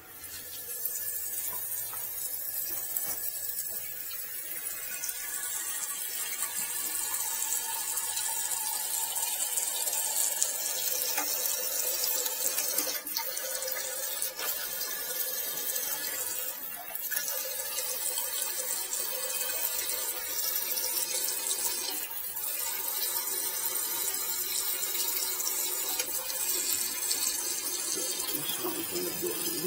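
Toilet tank filling through its fill valve once the water supply is turned back on: a steady hiss of water running in.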